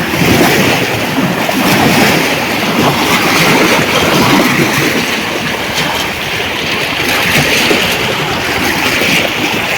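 Loud, steady rushing and splashing of river water close to the microphone.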